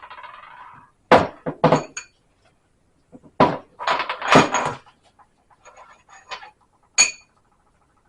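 Metal parts and tools clinking and knocking against each other in several clusters of sharp strikes, a few of them leaving a short metallic ring.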